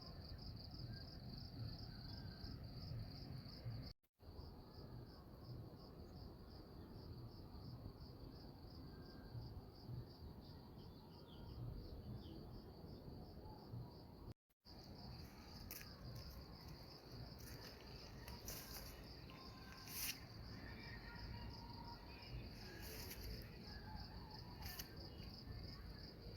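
A faint, steady, high-pitched trill with a rapid pulse, from a calling insect or frog, over a low rumble of wind or handling noise. It cuts out briefly twice.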